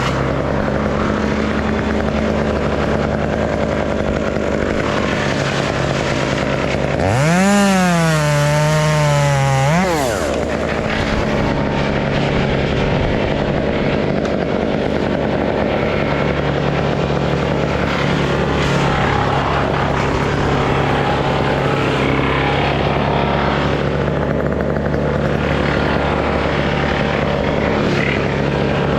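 Stihl MS 201 top-handle chainsaw: about seven seconds in it revs up sharply, its pitch sagging and recovering for about three seconds as if bogging in a cut, then drops off. A steady engine drone runs underneath.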